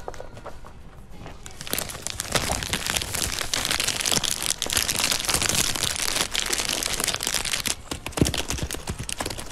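Vinyl LPs in plastic sleeves being flipped through in a record crate: a dense rustling and crackling of plastic and card, with many quick clicks as the records knock together. It starts about two seconds in, and one louder knock comes near the end.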